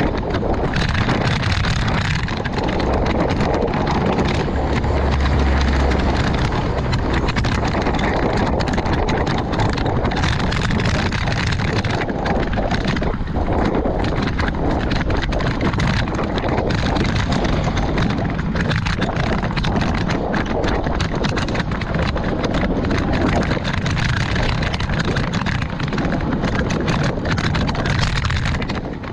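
Wind buffeting a GoPro's microphone while riding a road bike: an uneven, continuous rushing noise, with a heavier low gust about five seconds in.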